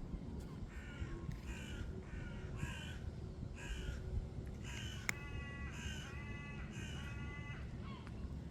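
A large bird, crow- or gull-like, giving a long run of repeated harsh calls, one every half-second to second, over a steady low background rumble. A sharp click comes about halfway through.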